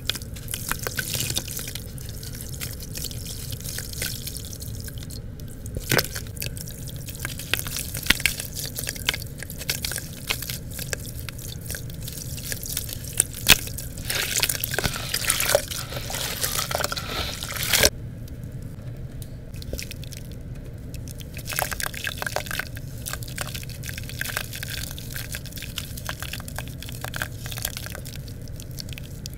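Hands squeezing and crushing water-soaked lumps of red dirt and brick paste in a plastic bucket of muddy water, with wet squelching and dripping. Dense short clicks run throughout, growing busier for a few seconds past the middle and then stopping suddenly.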